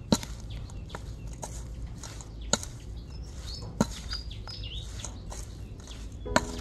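Small birds chirping in the background over a steady low rumble, with four sharp knocks spaced unevenly, a second or more apart.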